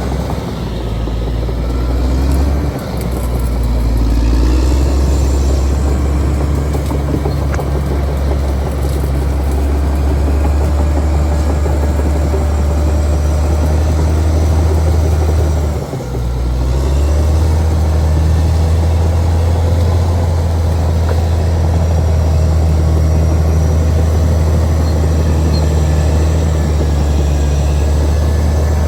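Caterpillar D6R XL bulldozer's diesel engine running steadily under work, a loud deep drone that dips briefly about three seconds in and again about sixteen seconds in.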